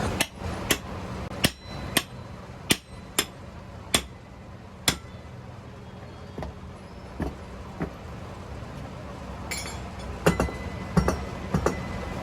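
Sharp, ringing knocks of metal struck on metal during motorcycle tyre and tube work. The knocks come irregularly, about one or two a second at first, then die away, and a quick cluster of them comes near the end. A steady low hum runs underneath.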